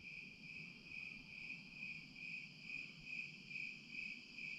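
Crickets chirping in an evening chorus: a faint, steady high trill that pulses about twice a second.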